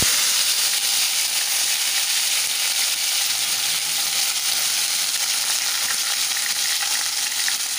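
Hot oil in a kadai sizzling loudly as tomatoes, green leaves and chopped onions are dropped in to fry. The sizzle bursts up at once and holds steady, easing a little near the end.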